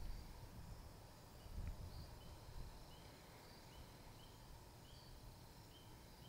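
Faint outdoor quiet: a low wind rumble, with a series of short, faint, high chirps repeating about one and a half times a second.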